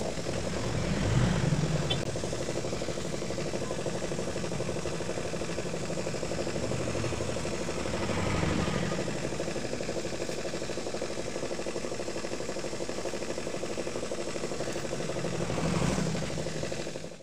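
Small electric motor running steadily, spinning a brush wheel with a hum. A steel pipe pressed against the wheel to clean it adds a rougher scraping that swells about a second in, again around eight seconds, and near the end.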